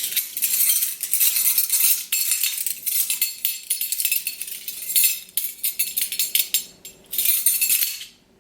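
Metal kitchen utensils clinking and rattling against each other, a dense clatter of small knocks that dies away near the end.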